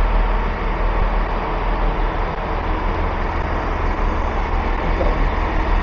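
Diesel train engine idling: a steady low rumble with an even hiss over it.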